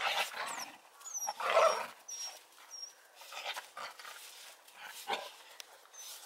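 Puppies and an adult dog making short vocal sounds while the puppies mob and jump on the adult in rough play. There are several brief bursts, the loudest about one and a half seconds in.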